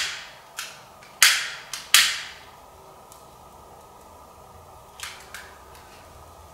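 Three sharp strikes a second or less apart, each trailing off in a brief hiss, as a fire is lit in a home fireplace, followed by two fainter clicks.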